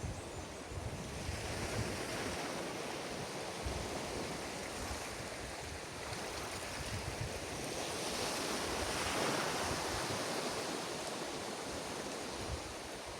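Ocean waves breaking and washing up the beach, one wave swelling to its loudest about eight to ten seconds in, with gusts of wind buffeting the microphone.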